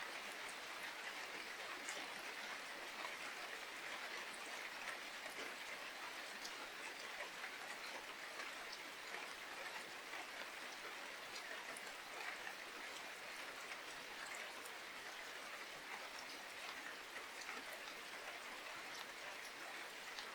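Steady rain falling, with many small scattered drop ticks over an even hiss.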